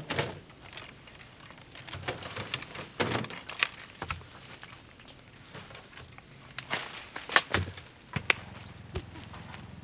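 Yuzu tree branches and leaves rustling, with sharp knocks, as a long pole is worked up among them. The sound comes in scattered clusters, with the loudest knocks shortly before the end.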